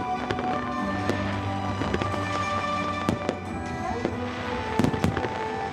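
Fireworks going off: scattered sharp bangs and crackle over music with long held notes. The loudest pair of bangs comes about five seconds in.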